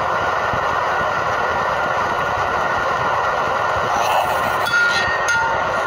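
Steady rushing hiss from a pot of leafy vegetable soup cooking on an induction hob, with a few brief faint clinks about four to five seconds in.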